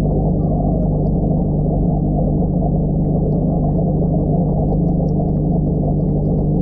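Aquarium aeration heard underwater through a camera housing: a steady low hum with a dull, muffled rush of bubbling from the air-driven sponge filter and bubble column, and faint small ticks of bubbles throughout.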